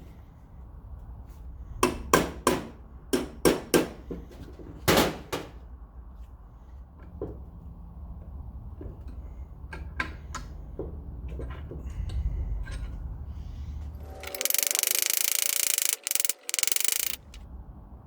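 Hand tools clicking and knocking against motorcycle engine parts: a quick series of sharp knocks in the first five seconds, then lighter scattered taps, over a steady low rumble. Near the end comes a loud steady hiss of about two and a half seconds that cuts out twice for an instant.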